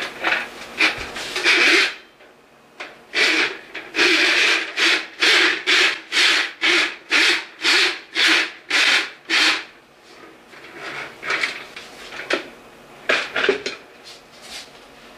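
Steel cable of a hand-crank drain auger rasping as it is fed out of its plastic drum into a pipe, in a regular run of short strokes about twice a second through the middle, with looser scrapes before and after.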